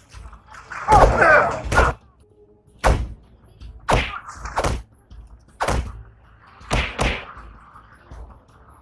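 Punches and kicks landing in a fist fight: a string of about eight sharp whacks and thuds at irregular intervals, with a man's short yell about a second in.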